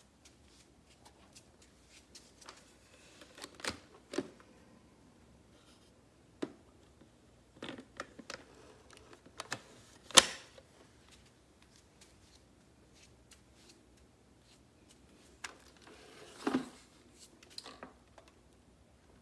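Scattered plastic clicks and knocks as parts of a Kenmore upright vacuum are handled, with the motor off. The sharpest knock comes about ten seconds in.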